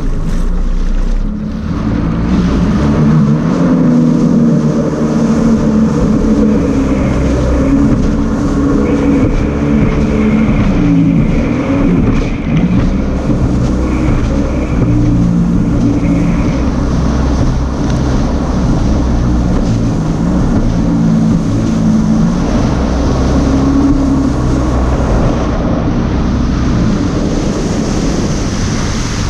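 Jet ski engine running, its pitch rising and falling as the throttle changes, with wind buffeting the microphone and water rushing past the hull.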